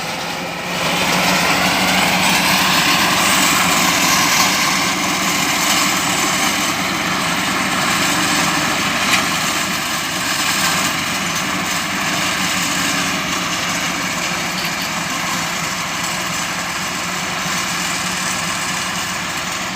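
Engines of motorised grass-mowing machines cutting hay, rising in pitch over the first couple of seconds, then running steadily.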